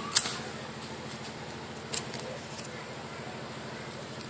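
Sharp clicks from a lighter and hands working at a homemade drink-can Stirling engine: one loud click just after the start, then a few softer clicks around two seconds in, over a low steady pulsing hum.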